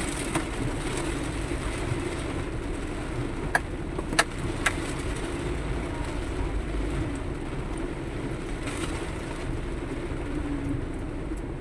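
Steady running of a vehicle moving through traffic, a low rumble of engine and road noise, with a few sharp clicks around four seconds in.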